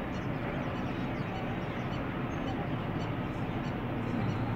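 Steady rushing background noise with no distinct events, the open-air ambience of the high outdoor spot where the scene is filmed.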